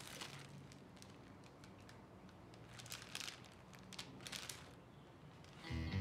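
Faint crinkling of a small plastic bag being handled, in a few short bursts. Guitar music starts near the end.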